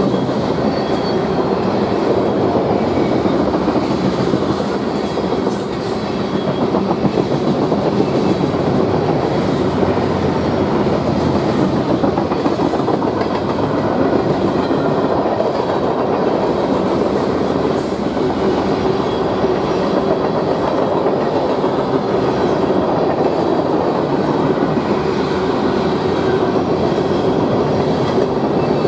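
A mixed freight (manifest) train's cars rolling steadily past, wheels clicking over the rail joints in a continuous loud rumble. There are a few brief high squeaks from the wheels, about 5 seconds in and again about 17 seconds in.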